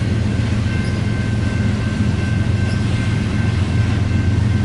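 Freight cars of two trains rolling past, the empty coal gondolas in front: a loud, steady low rumble of steel wheels on rail, with a faint steady high-pitched ring above it.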